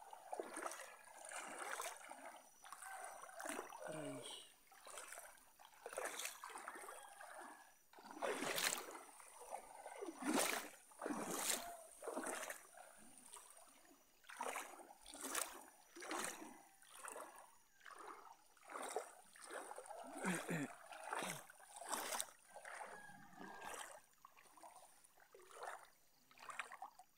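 Water splashing and sloshing around a small wooden boat, in irregular strokes about one or two a second.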